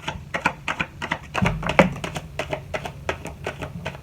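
Rapid, irregular clicks and light taps, several a second, with two louder knocks about a second and a half in.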